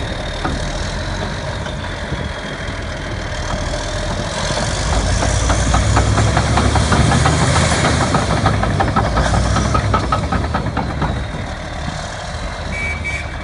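Komatsu D375A bulldozer's diesel engine running. It grows louder from about four seconds in until about ten seconds, with a rapid clatter and a high whine rising and falling through the louder stretch.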